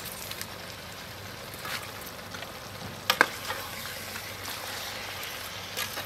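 Water spinach being stirred with a metal ladle in a steaming pot of sweet and sour fish soup: a steady sizzling hiss with a few sharp knocks of the ladle against the metal pot, the loudest about three seconds in.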